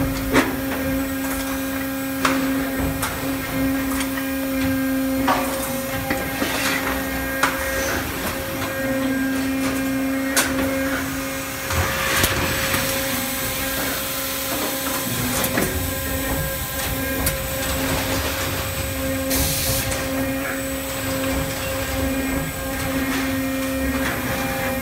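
Salvagnini P4 CNC panel bender running through a bending cycle: a steady hum with a higher tone above it, broken by intermittent clicks and knocks as the machine positions and bends the sheet, and a short hiss about twenty seconds in.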